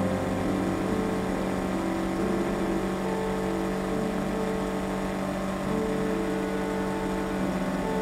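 Yamaha R3's parallel-twin motorcycle engine running at a steady cruise, with a steady rush of wind and road noise.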